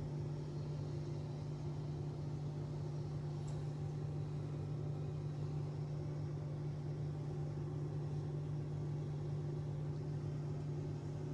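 A steady low mechanical hum with one constant low tone, unchanging throughout.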